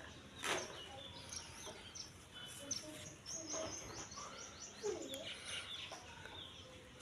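Birds calling: many short high chirps, with a quick run of repeated notes in the middle, and a few lower calls. A short sharp noise comes about half a second in.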